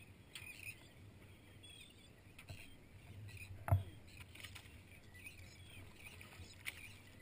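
Faint wash of wind and sea aboard a small boat, with scattered light clicks and knocks and one louder thump near the middle.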